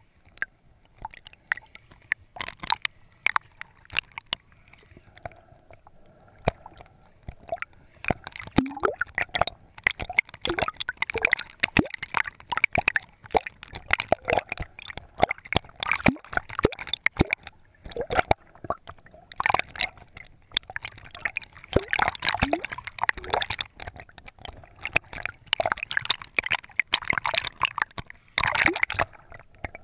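Water gurgling and sloshing around a GoPro in its waterproof housing, with irregular pops and crackles that get much busier about eight seconds in.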